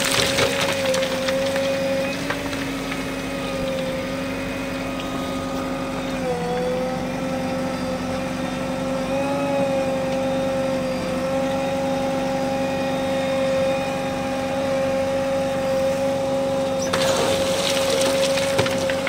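JCB backhoe loader's engine and hydraulics running with a steady whine that dips briefly about six seconds in. Wet river stones clatter out of the backhoe bucket onto the stone pile right at the start and again about 17 seconds in.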